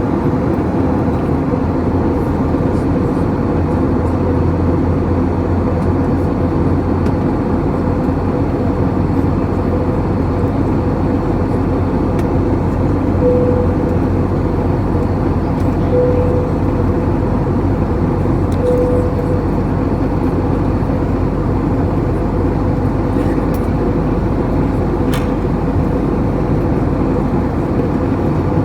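Airliner cabin noise from a window seat: the steady rushing of jet engines and airflow, with a low hum and a steady tone underneath.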